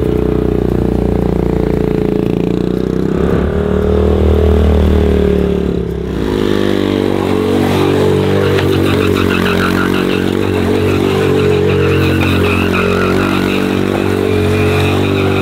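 Small scooter engine running steadily in a wheeled jet-ski conversion, its pitch stepping to a new level a few times.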